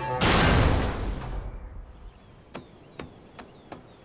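Cartoon sound effect of a ship running aground: a loud noisy crash that fades away over about a second and a half, followed by four short sharp clicks.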